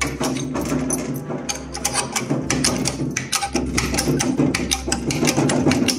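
Background music with a quick, steady ticking beat over sustained low chords.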